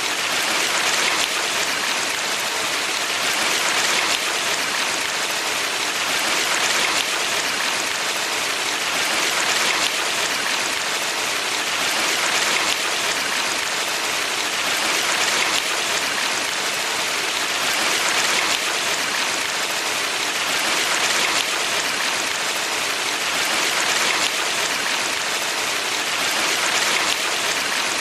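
Mountain valley stream flowing steadily, a dense even rush of water that swells gently about every three seconds.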